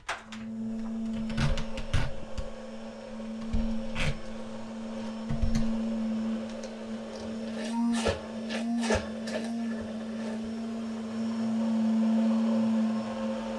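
Immersion blender motor running steadily as it whips egg yolk, lemon juice and salt into hollandaise sauce, with a few short knocks and two brief dips in the motor note.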